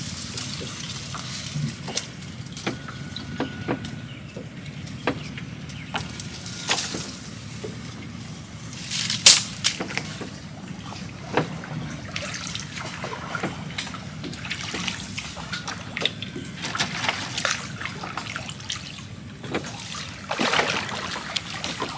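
Water trickling and sloshing, with scattered small splashes and knocks over a low steady rumble.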